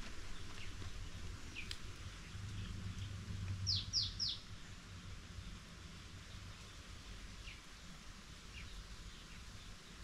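Small bird calling with short downward-sliding chirps: a quick run of three about four seconds in, with a few fainter single chirps before and after. A low rumble runs underneath.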